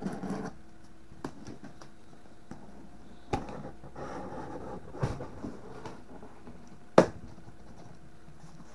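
A cardboard shipping box being handled and opened: a few knocks and bumps with scraping and rustling of cardboard, the loudest a sharp knock about seven seconds in, over a faint steady hum.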